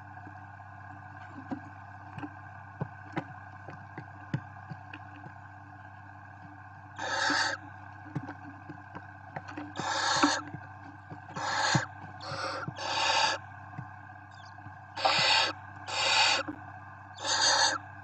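Barn owl chicks hissing, the snore-like begging call of nestlings: about eight harsh hisses, each under a second, come in the second half. Before them there are faint scattered ticks and scratches, and a steady low hum runs underneath.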